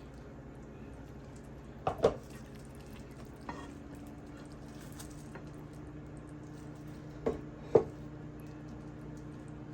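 Dishes and utensils knocking as food is plated: two quick pairs of clinks, about two seconds in and again near the end, over a steady low hum.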